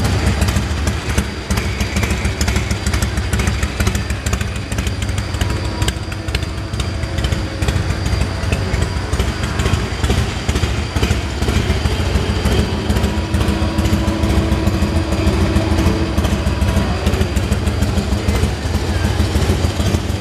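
2000 Harley-Davidson Heritage Softail's Twin Cam 88B V-twin engine idling steadily.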